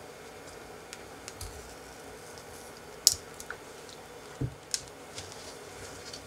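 A kitchen knife cutting down through a no-bake lychee cheesecake with a set jelly topping, giving scattered small clicks and crunches. The sharpest is about three seconds in, and there is a dull knock about four and a half seconds in.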